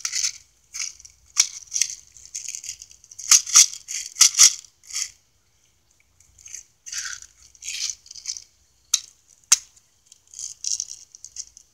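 Plastic airsoft BB pellets rattling in irregular bursts as they are loaded into an airsoft gun, with a few sharp clicks mixed in.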